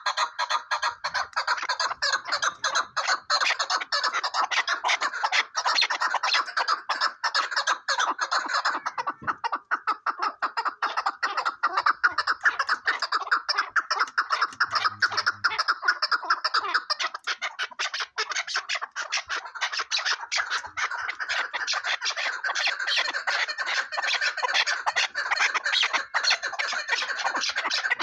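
Chukar partridges calling without a break: a fast, continuous string of short, sharp repeated notes.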